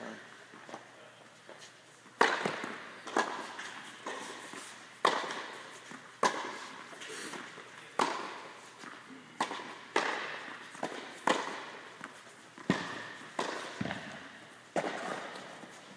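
Sharp slaps and thuds at irregular intervals, about one a second, each trailing a short echo: the strikes and foot stamps of two people sparring.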